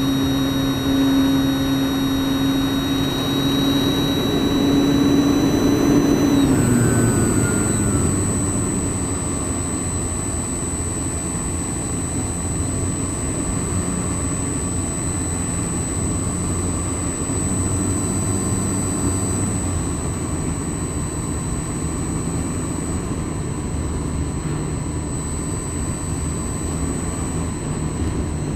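Electric motor and propeller of a radio-controlled Yak-55 model plane, heard from on board. A steady high whine drops away as the throttle is cut about six seconds in. After that, rushing air noise and a thin high steady tone carry on as the model glides low.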